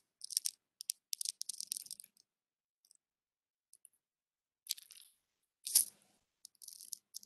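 Faint stylus clicks and scratches on a tablet as words are handwritten: clusters of short, high ticks, with two louder scrapes about five and six seconds in.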